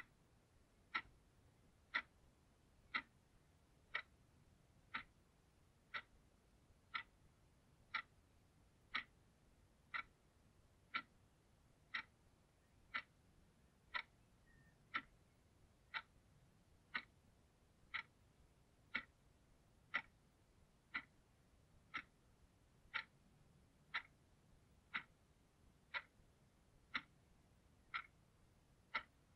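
Quartz analog alarm clock ticking, one sharp, evenly spaced tick every second.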